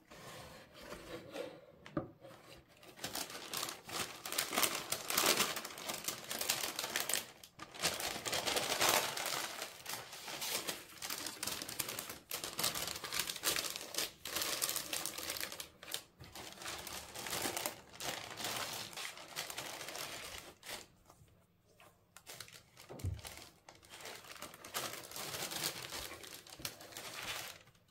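Tissue paper crinkling and rustling as gloved hands unfold the wrapping in a cardboard shoebox, in irregular bursts. A single dull thump about two-thirds of the way through.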